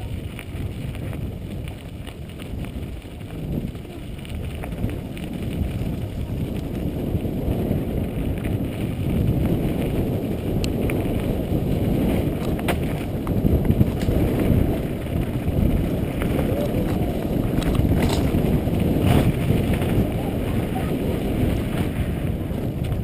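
Wind rumbling on a GoPro's microphone as a mountain bike rides a rough dirt road, with the tyres crunching over the dirt and scattered sharp knocks and rattles from bumps. It grows louder as the bike picks up speed.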